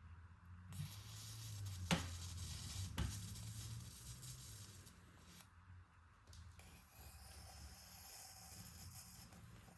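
Pen scratching across paper in two stretches of writing, with two sharp clicks during the first stretch.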